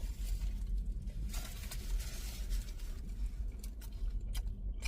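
Steady low rumble of a car engine idling, heard from inside the cabin, with a short rustle about a second and a half in and a few sharp clicks near the end.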